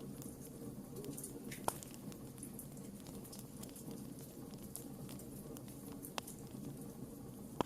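Wood fire burning in a fireplace: a steady low rush of flame with scattered small crackles, and a few sharp pops from the logs, the loudest about a second and a half in and just before the end.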